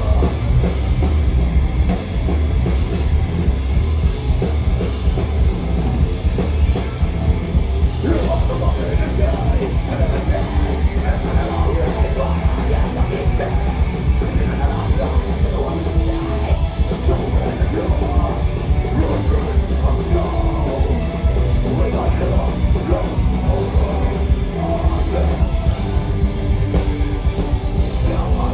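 Metalcore band playing live through a PA: distorted electric guitars over a pounding drum kit, loud and unbroken, with a heavy low end.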